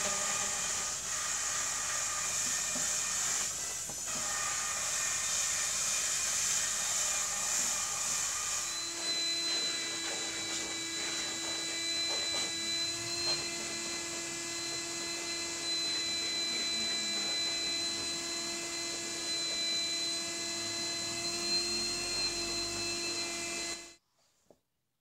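Wet/dry shop vacuum running steadily while its hose nozzle works over a carpeted car floor mat, the motor's tone shifting to a steady whine about nine seconds in. It cuts off suddenly near the end.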